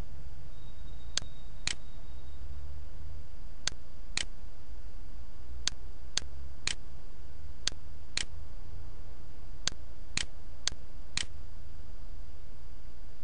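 Computer mouse clicking: about a dozen sharp clicks, in pairs and short runs about half a second apart, over a steady low electrical hum.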